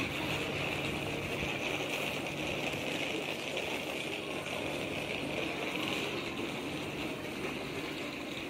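Steady outdoor ambience: an even, high-pitched hiss or drone over a faint low hum, with no distinct events.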